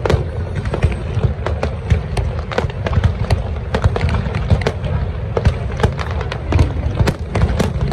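Fireworks display firing a dense barrage: many overlapping sharp bangs and crackles a second over a steady low rumble.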